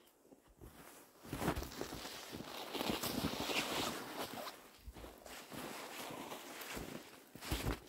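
Footsteps walking on snow, each step a crunch, with a longer rustling stretch about three seconds in.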